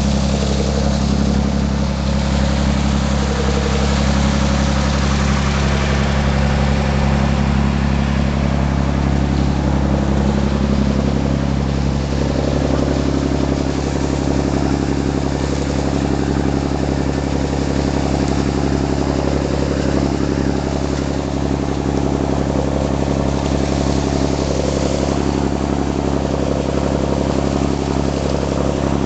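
Boat engine running steadily while the boat is under way, with the rushing, churning water of the wake.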